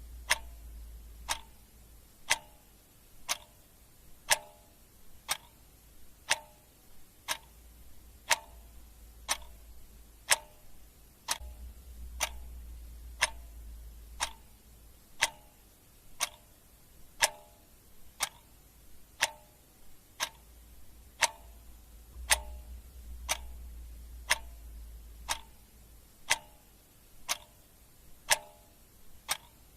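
A clock ticking steadily, about one tick a second. A faint low hum rises and falls underneath at intervals of about ten seconds.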